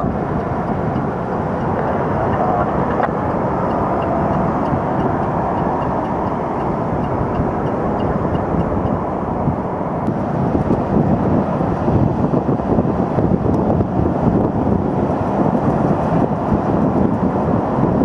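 Steady rushing noise of wind buffeting the microphone, mixed with waves breaking on the shore.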